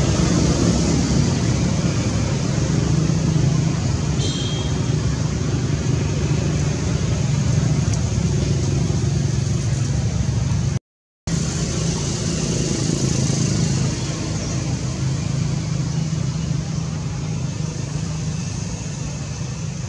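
Steady low rumble with a hiss over it, like continuous engine or traffic noise, cut off completely for about half a second at an edit near the middle.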